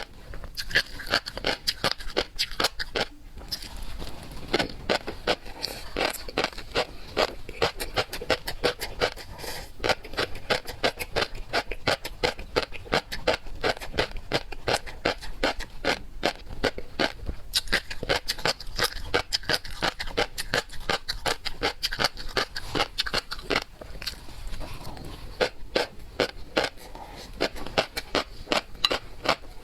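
Close-miked chewing of seafood, a rapid run of wet mouth clicks and smacks, several a second, with a brief pause about three seconds in.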